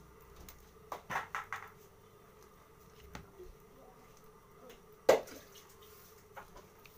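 Raw tapioca-dough dumplings dropped by hand, one at a time, into a pot of water that is not yet hot, making soft plops. A few come about a second in, another near three seconds, and a louder, sharp one a little after five seconds.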